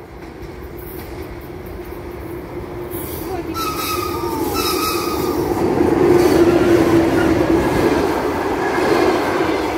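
EP1M electric locomotive hauling a passenger train, approaching and then passing close by. A steady hum and rail noise grow louder to a peak about six seconds in as the coaches go by, with a couple of brief higher squeals about halfway through.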